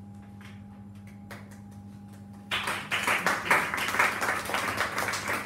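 A small audience applauding, starting suddenly about two and a half seconds in. Before that there is only a steady low hum.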